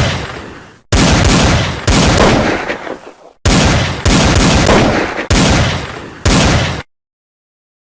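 Gunfire sound effect, played as a trading-indicator alert: about half a dozen loud shots at uneven spacing, each dying away, before the sound cuts off abruptly about a second before the end.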